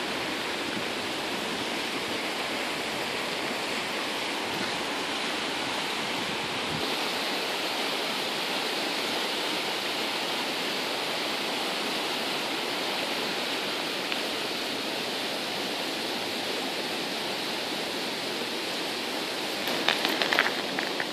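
Steady rushing hiss without rhythm or pitch, with a short cluster of clicks and rustles near the end.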